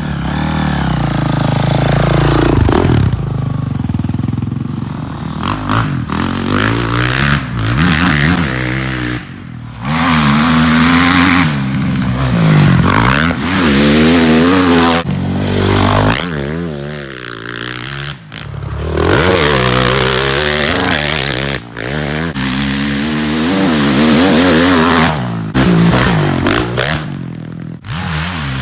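Single-cylinder four-stroke engine of a 2005 Honda CRF450R-based trike, revved up and down again and again under riding, with sudden throttle chops between runs.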